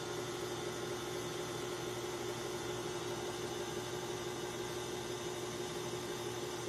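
Stand mixer motor running at a steady speed, driving a pasta roller attachment as a sheet of dough passes through: an even motor hum with one constant tone over a hiss.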